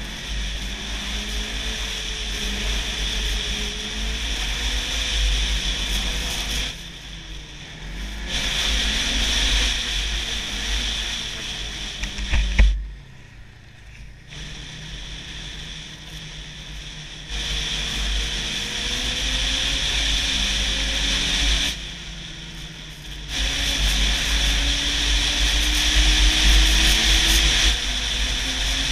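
Snowmobile engine running on the trail, its pitch rising and falling with the throttle, under heavy wind noise on the microphone. The throttle is eased off a few times, and a sharp knock comes a little before halfway.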